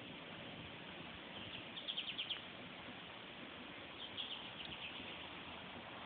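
Bird chirping: two quick series of high chirps, about a second and a half in and again about four seconds in, over a steady background hiss.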